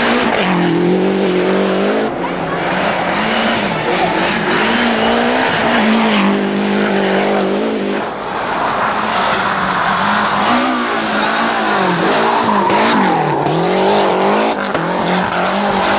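Lancia Delta Group A rally car's turbocharged 2.0-litre four-cylinder engine at full effort, its pitch repeatedly climbing and dropping with gear changes and throttle lifts. The sound breaks where several separate passes are cut together.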